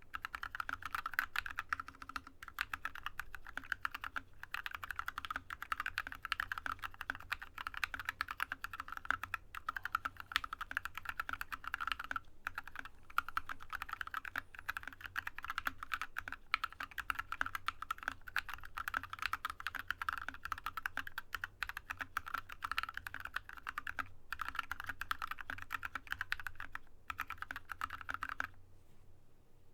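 Fast, continuous typing on a Drop ALT low-profile mechanical keyboard with Yok Polar Panda linear switches lubed with Krytox 205g0, a dense run of keystrokes that stops about a second before the end.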